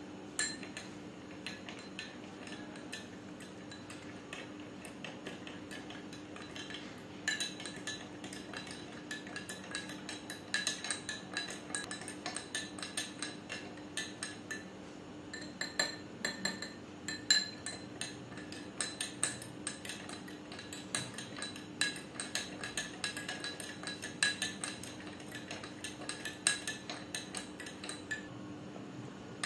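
A spoon stirring chocolate syrup into milk in a drinking glass, clinking against the glass; the clinks are sparse at first and come thick and fast from about seven seconds in.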